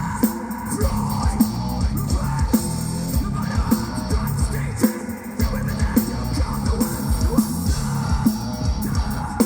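Nu-metal band playing live: electric guitars over a drum kit with steady, hard-hitting drum strokes, the heavy low end dropping out briefly about five seconds in.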